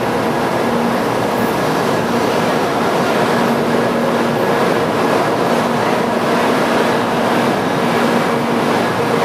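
A 0 Series Shinkansen train pulling out of the station, its running noise a steady wash of rolling sound with a faint hum underneath.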